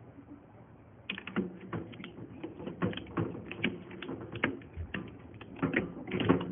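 A quick, irregular run of sharp clicks and taps starting about a second in, like small hard objects being handled.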